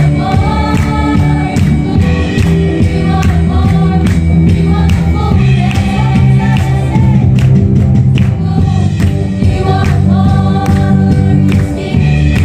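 Gospel praise song sung by a group of young women into microphones. Their voices are amplified over loud accompaniment with deep bass notes and a steady drum beat.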